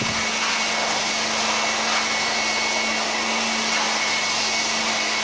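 Handheld electric air blower running steadily, blasting air through a diesel engine's main air filter element to clear dust and sand out of it. A steady rush of air with a constant motor hum and a high whine.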